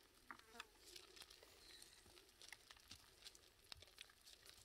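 Near silence with faint, scattered light crackles, like a hand sifting through dry rice straw and chaff on a plastic tarp.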